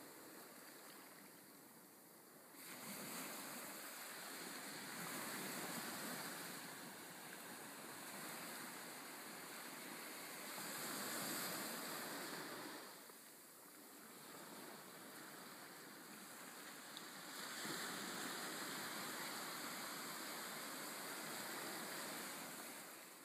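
Faint sea surf: waves washing in with a steady hiss that swells and eases off every few seconds.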